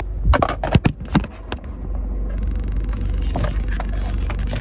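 Phone handled and set in place: a few knocks and rubbing in the first second and a half. Under it the parked car's engine idles with a steady low hum.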